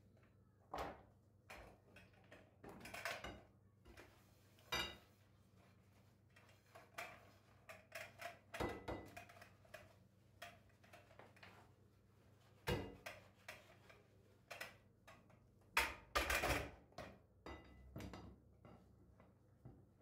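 Dishes being handled at a kitchen sink: kitchenware, a pot lid and a plastic container clinking and knocking against a glass bowl and the sink in short, irregular clatters. The loudest knocks come about 13 and 16 seconds in.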